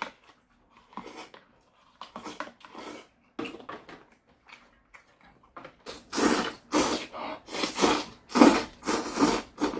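Close-up eating sounds: a sip of soybean-paste soup and a few small mouth noises, then about six seconds in, a run of loud slurps and chewing as soup-soaked greens are eaten from a bowl with chopsticks.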